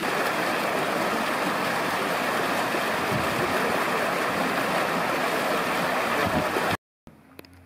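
Water of a fountain's row of vertical jets splashing into its basin: a steady rush of falling water that cuts off suddenly near the end.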